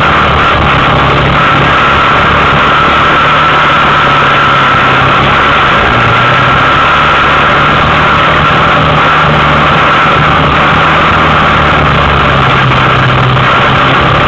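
Yamaha Big Bear 400 ATV's single-cylinder four-stroke engine running steadily under way, its pitch stepping a little as the throttle changes.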